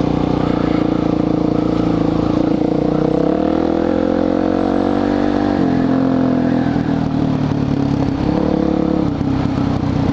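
Suzuki DR-Z400SM's single-cylinder four-stroke engine running while riding a trail, its exhaust fitted with a silencer insert; the revs climb for a few seconds, drop sharply about halfway through, then run steadier with a brief rise near the end.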